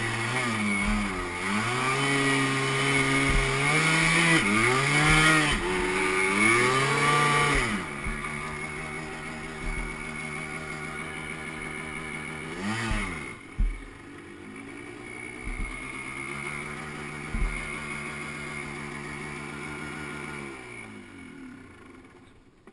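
Yamaha Blaster's 195 cc two-stroke single-cylinder engine revving up and down repeatedly for the first several seconds, then running at a steadier, lower speed with one quick rev about thirteen seconds in, fading away near the end.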